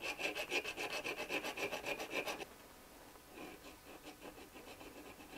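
Small hand file scraped back and forth across a small part of an Atlas Gunworks tooless guide rod clamped in a vise, taking off metal in quick even strokes, about five a second. After about two and a half seconds the strokes turn fainter and sparser.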